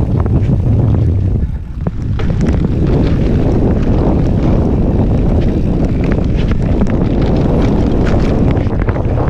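Heavy wind noise buffeting the microphone of a mountain bike riding downhill at speed, with frequent clicks and knocks from the bike rattling over rough trail. It eases briefly about a second and a half in.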